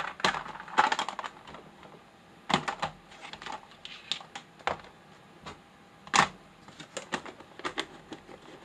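A hand rummaging through small items in a plastic storage tray: irregular light clicks and clatters, the loudest knock about six seconds in.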